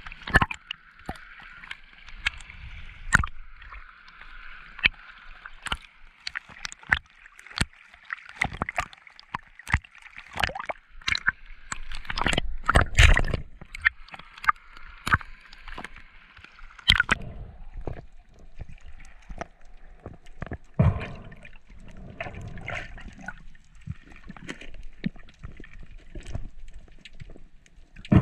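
Underwater sound picked up by a diver's camera: water gurgling and sloshing, broken by many sharp clicks and knocks. The loudest stretch comes about halfway through.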